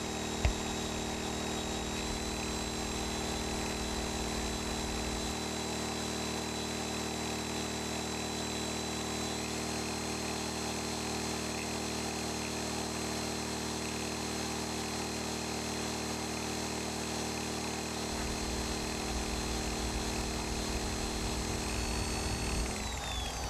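Predator 2000 inverter generator's engine running hard under a load of about 1,600 W, its overload light flashing, with a high whine from the plugged-in heat gun and orbital polisher that steps up slightly twice. Near the end the engine cuts out and the whine falls away as the load spins down: the generator shutting down from overload.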